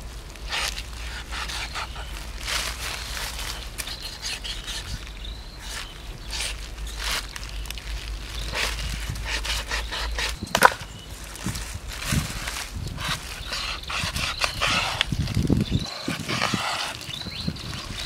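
Machete-style knife cutting through raw pork belly on a plastic sheet over a wooden board: irregular slicing and scraping strokes with plastic crinkling, and one sharp knock about ten and a half seconds in.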